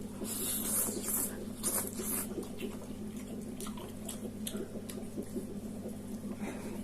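A person slurping and chewing noodles, with a few loud slurps in the first two seconds and smaller wet chewing sounds after, over a steady low hum.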